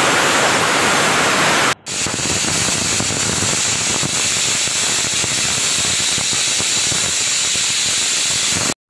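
Chopped red onions sizzling loudly in hot oil in a kadai, a steady frying hiss. It breaks off briefly about two seconds in.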